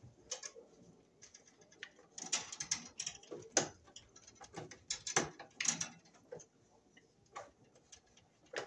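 Irregular clicks, taps and scrapes of a stiff electrical conductor and a hand tool against a metal sub-panel as the wire is worked into a terminal, with the sharpest clicks about three and a half and five seconds in.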